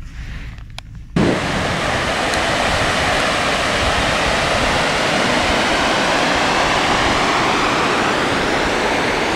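A dog licks at a cup with a few faint clicks. About a second in, this gives way abruptly to a loud, steady rushing of wind buffeting the microphone on an open sandy beach.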